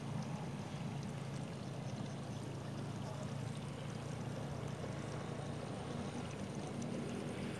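A steady low drone, as of a distant motor running without change, under a faint hiss of noise.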